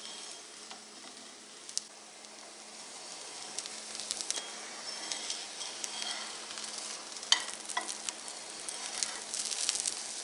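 Egg paratha frying in a little oil in a nonstick frying pan: a steady sizzle, with sharp clicks and scrapes of metal tongs against the pan as the paratha is lifted and folded over. The sharpest click comes a little past the middle, with a quick run of them near the end.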